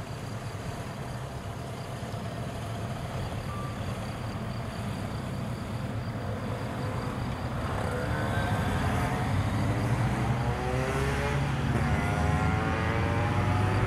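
SU45 diesel locomotive's engine throttling up as it pulls a passenger train away. A low drone grows steadily louder, and about halfway through its pitch starts rising.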